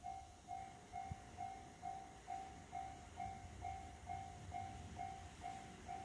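Japanese railroad crossing warning bell ringing its electronic 'kan-kan' tone, repeating evenly about twice a second.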